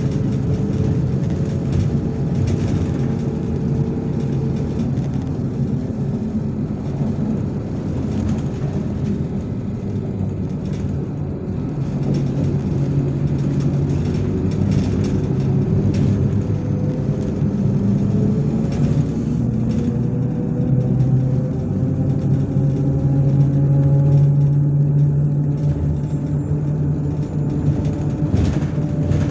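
MAZ-103 city bus heard from inside the cabin while driving: steady engine and drivetrain rumble with road noise and scattered rattles. A whine rises in pitch through the middle as the bus picks up speed.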